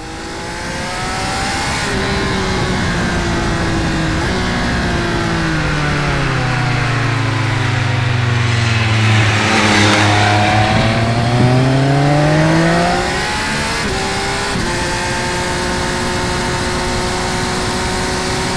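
Triumph Speed Triple 1200 RR's inline three-cylinder engine under way on the road, its note stepping through gear changes early on. About ten seconds in the bike passes close, with a swell of wind and tyre noise as its engine pitch dips and climbs. After that it settles into a steady cruise.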